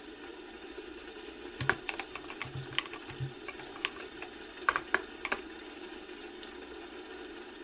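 Typing on a computer keyboard: a short, irregular run of keystrokes starting about one and a half seconds in and stopping a little past halfway, over a steady low hum.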